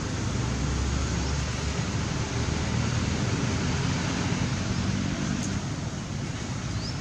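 Steady rushing outdoor background noise with an uneven low rumble, strongest from about a second in to past the middle.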